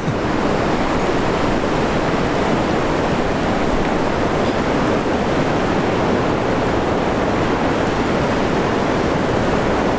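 Steady rushing of the fast-flowing Lower Niagara River, a loud, even noise that does not change.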